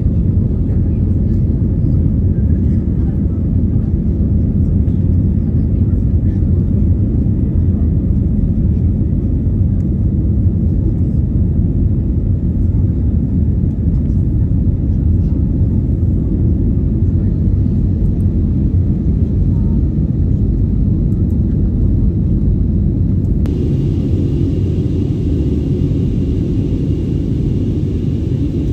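Jet airliner cabin noise during the climb: a steady, loud, low rumble of engines and airflow heard from a window seat. Near the end the sound turns brighter, with a faint high whine added.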